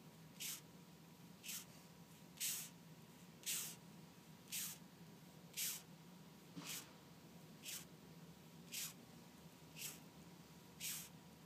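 A beetle giving short, faint hissing bursts that sound like sneezes, about one a second in a steady rhythm.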